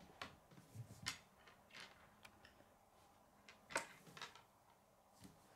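Faint, scattered clicks and taps of plastic K'nex pieces being handled on a wooden table, the sharpest about two-thirds of the way through.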